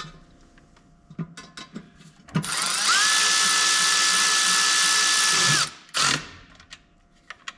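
Milwaukee M12 3/8-inch cordless ratchet running a bolt in. After a few light clicks of handling, the motor whine rises as it spins up, runs steadily for about three seconds, drops away, and is followed by a brief second burst.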